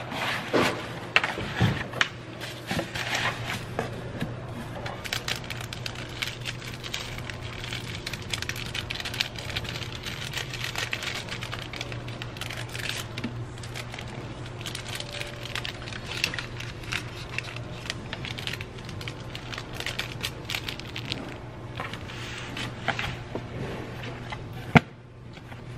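Plastic packaging and paper filler crinkling and rustling as items are packed into a cardboard box, over a steady low hum, with a sharp click near the end.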